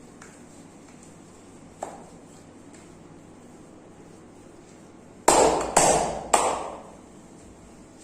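Three loud, sharp hand slaps in quick succession, about half a second apart, each with a brief ringing tail: percussive massage strokes. A single faint tap comes a few seconds before them.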